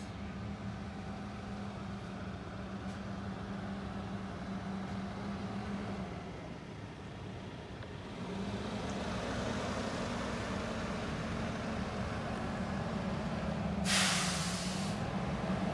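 Mack garbage truck's diesel engine running with a steady drone that grows louder about halfway through. About a second before the end comes a short, loud hiss of air brakes.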